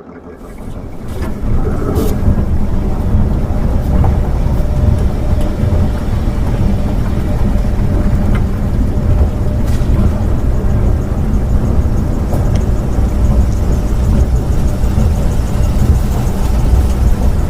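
Heavy truck engine running steadily with a deep low rumble, coming up in the first second or so and then holding an even pitch.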